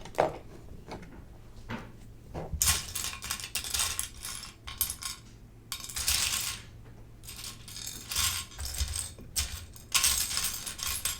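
Loose plastic Lego pieces clattering as a hand sifts and rummages through a pile of them, searching for a part. The clatter comes in several bouts a second or two long, with single clicks between them.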